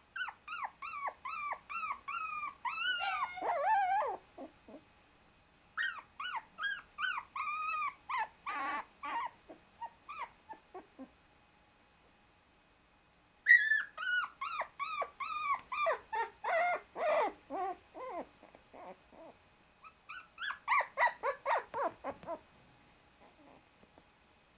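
Newborn Shiba Inu puppy whimpering and crying in four bouts of short, high, falling cries, about three a second, with quiet pauses between. These are the distress cries of a 24-day-old pup pinned under his littermates and trying to wriggle free.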